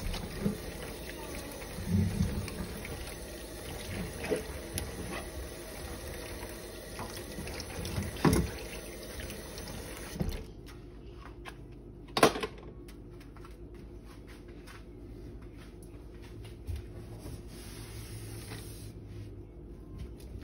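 A kitchen faucet runs into a stainless steel sink full of soapy water, with a few knocks. The faucet is shut off about halfway through with one sharp knock, and small clicks follow.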